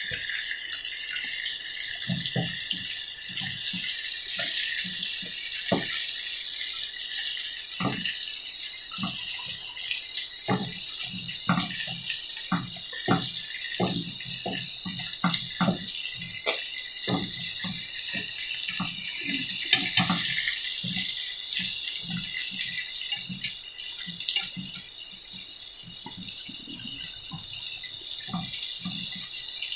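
Breaded chicken bites shallow-frying in hot oil in a nonstick pan: a steady sizzle, with frequent light taps and clicks as a wooden spatula and a metal utensil turn the pieces over.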